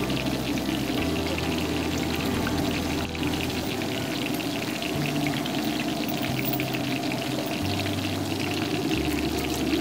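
Pakoras deep-frying in a large wok of hot oil: a steady crackling sizzle.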